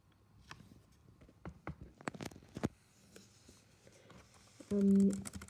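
Scattered sharp clicks and taps of a computer keyboard and mouse being worked, then near the end a short steady hum-like tone lasting about half a second, the loudest sound.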